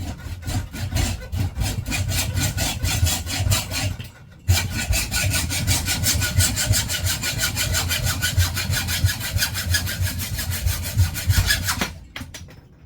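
A hand hacksaw cutting through a threaded metal bicycle fork steer tube lubricated with WD-40, in quick, even back-and-forth strokes. The sawing pauses briefly about four seconds in, then resumes and stops near the end as the tube is cut through.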